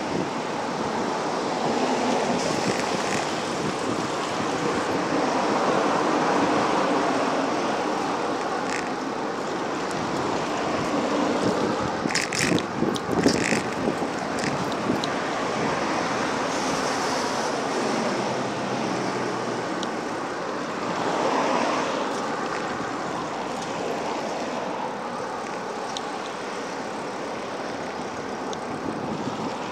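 Road traffic on a city street: cars passing in waves. There is a short cluster of sharp clicks and rattles about halfway through.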